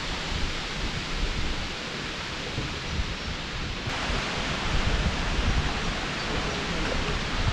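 Wind buffeting a small camera microphone: an irregular low rumble under a steady hiss, which turns brighter and more even about halfway through.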